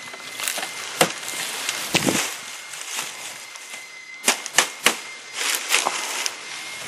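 Sharp hammer blows nailing palm-frond thatch onto a wooden tiki-hut frame: single strikes about one and two seconds in, then three quick strikes a little past halfway.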